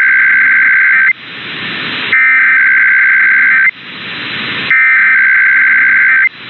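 Emergency Alert System SAME header: three bursts of two-tone digital data, each about a second and a half long, with radio static hissing in the gaps between them. They encode an IPAWS required weekly test.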